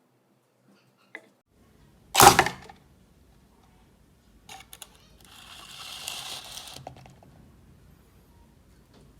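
Hand work on an old metal wrench: one sharp knock about two seconds in, a few light clicks, then a hiss lasting about a second and a half.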